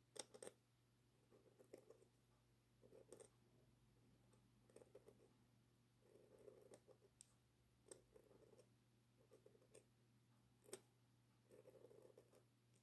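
Faint scratching of a dip pen's metal nib on paper in short strokes, roughly one every second, with a few sharp ticks as the nib touches down.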